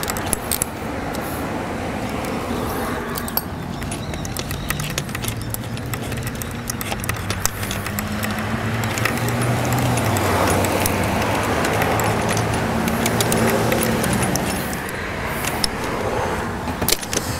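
A motor vehicle's engine running in the background, a steady low hum that grows louder around the middle and eases off again, with scattered metal clicks and clinks from a socket wrench working a bolt.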